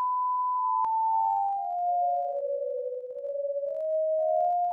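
A long censor bleep: a pure electronic beep tone that steps down in pitch note by note over about two seconds, holds low, then climbs back up in steps near the end, like a little tune.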